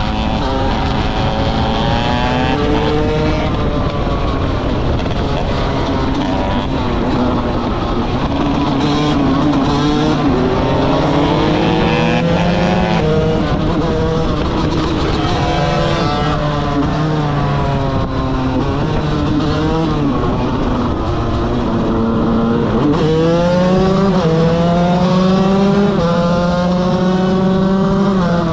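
KTM 125 motorcycle engine at full throttle, its pitch climbing and dropping again and again, with a sharp rise near the end.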